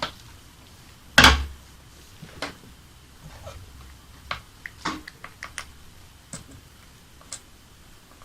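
Small parts and tools being handled on a hard surface: one heavy knock about a second in, then scattered light clicks and taps.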